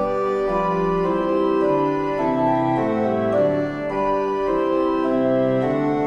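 Organ music: sustained chords held and changing every half second to a second, with a moving bass line.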